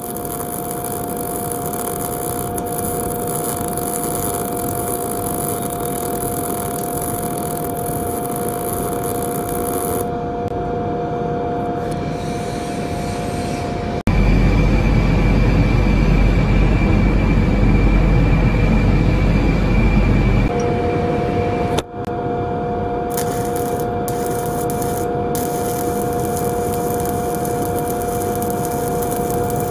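Arc welding on a horizontal plate joint, a steady hiss and crackle: first the MIG root pass, then stick welding of the fill pass with a 7018 rod. About halfway through, a louder stretch with a deep low rumble lasts some six seconds before the welding noise returns.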